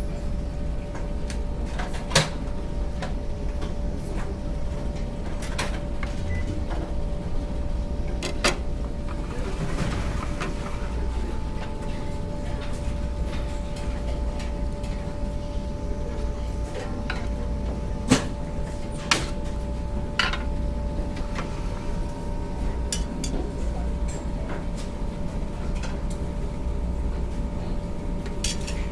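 Steady low rumble of the ferry's machinery with a faint steady hum on top, broken by a few sharp clinks of serving tongs and a ladle against metal buffet trays and dishes.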